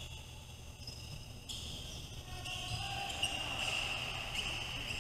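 Basketball game in play: a ball bouncing on the court over a steady high-pitched hum and a low rumble, with one sharp knock a little past three seconds in.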